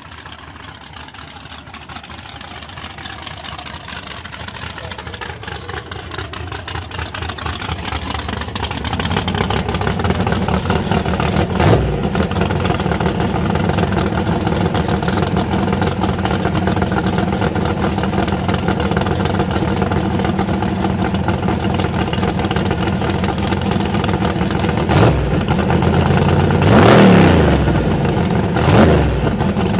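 Fox-body Ford Mustang drag car's engine running at a steady idle, growing louder over the first ten seconds. There is one sharp crack about twelve seconds in. Near the end the engine is revved briefly three times, rising and falling each time.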